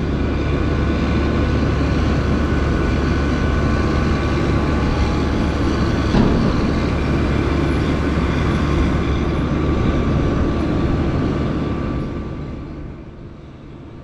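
Case IH Steiger 470 four-wheel-drive tractor's diesel engine running steadily as it drives over and packs a corn silage pile, a deep rumble with a steady whine on top. The sound fades away over the last couple of seconds.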